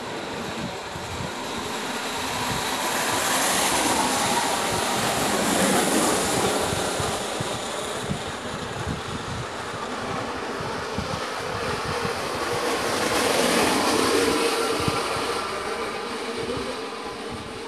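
Ball-bearing carts with steel bearing wheels rolling fast down an asphalt road, a rough rattling roll that swells twice as carts pass.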